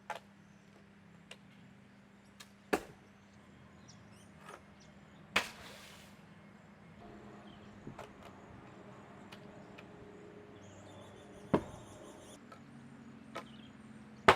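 A series of sharp, irregularly spaced knocks, about ten of them, three much louder than the rest, over a faint steady hum.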